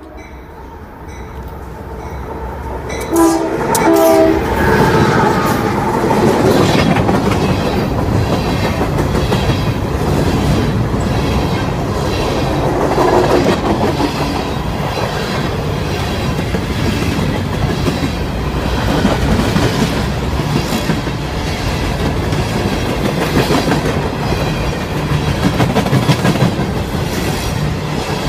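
Union Pacific freight train: the lead locomotive gives two short horn blasts about three seconds in as it comes up. Then the locomotives and a long string of hopper cars pass close by, their wheels rumbling and clacking on the rails.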